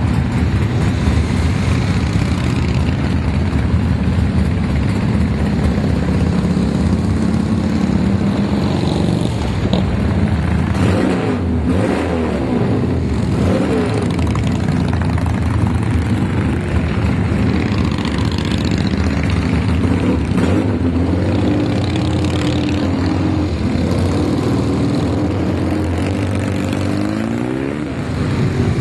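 A steady stream of motorcycles, many of them Harley-Davidson V-twins, with pickup trucks among them, driving past on the street. The engines run continuously, and bikes throttle up with a rising engine pitch as they go by, most clearly near the middle and again near the end.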